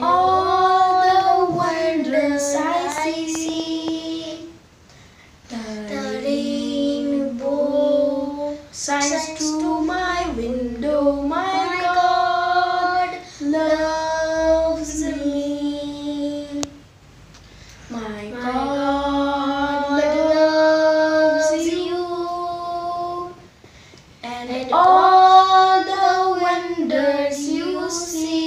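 A child's voice singing a song without accompaniment, in phrases separated by short pauses.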